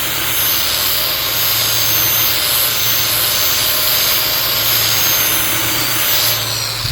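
Angle grinder with a flap disc grinding the cutting edge of a steel mower blade: a steady, loud high whine over a harsh grinding noise. Near the end it is switched off and the whine falls as the disc spins down.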